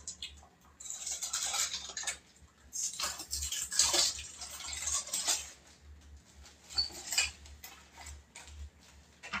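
Dishes and cutlery clinking and clattering at a kitchen sink in irregular knocks, with some splashing water.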